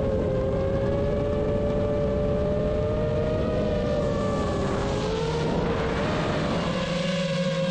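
Motors of a GEPRC Vapor D6 FPV quadcopter whining in flight, two close tones wavering in pitch with throttle over a steady rush of wind. About five seconds in the pitch dips and the wind swells briefly before the whine settles again.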